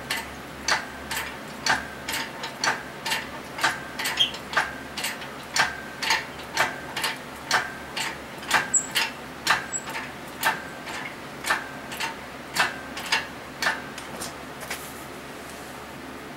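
Hand socket ratchet clicking while working a fastener on a V6 engine, single sharp metallic clicks with a slight ring at about two a second, stopping near the end.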